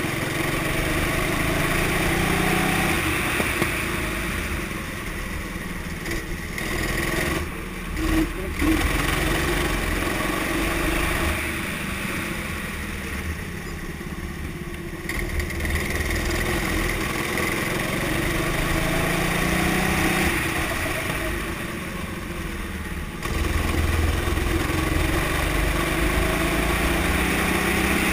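Go-kart engine heard from on board, revving up through the gears on the straights and dropping back as the kart slows for corners, over and over for several laps' worth of bends. There are quieter stretches in the middle, and the engine picks up sharply again a few seconds before the end.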